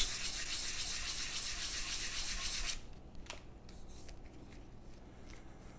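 320-grit sandpaper on a hand-held block rubbed over wooden revolver grip panels: a steady sanding hiss that stops abruptly about three seconds in. A few faint light rubs and ticks follow as the panels are handled.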